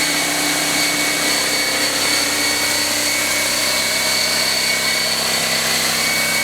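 Fortress 27-gallon air compressor running steadily, its motor and pump making an even mechanical noise with a few steady whining tones and no change in level.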